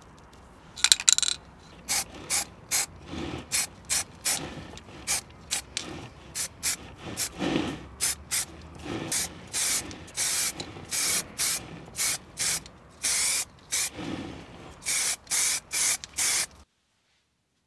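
Aerosol spray paint can spraying in many short bursts, about two a second, each a brief hiss. The sound cuts off suddenly near the end.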